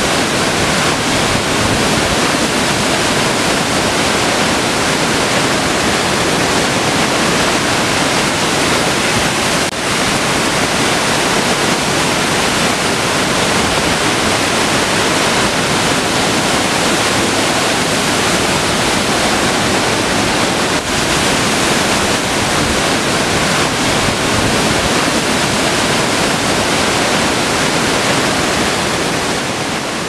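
Waterfall pouring down a rock face into its pool: a loud, steady rush of falling water.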